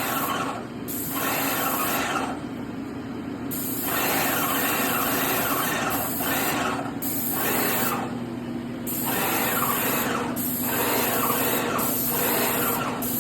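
Graco Magnum X7 airless paint sprayer in use: the spray gun hisses in repeated bursts of one to two seconds as the trigger is pulled and released, over the steady hum of the sprayer's pump.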